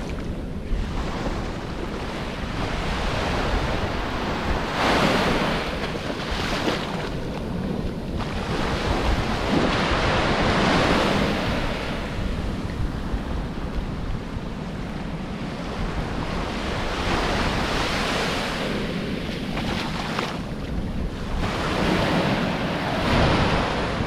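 Sea surf: waves breaking and washing up the beach, swelling every few seconds, with heavy wind buffeting on the microphone.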